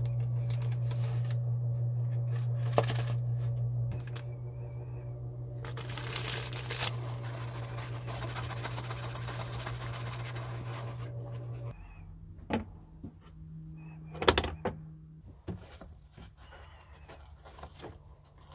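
A steady low machine hum cuts off abruptly about twelve seconds in. Over it, a paper funnel rustles and there is a brief hiss as powder-coat powder is poured through it into a plastic bottle. Then come scattered handling clicks and knocks, the loudest a sharp knock about fourteen seconds in.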